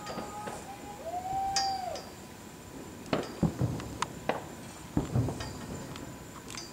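Distant fireworks going off: several sharp bangs with low rumbling booms, the strongest about three and five seconds in. About a second in, a one-second pitched wail rises slightly and falls away.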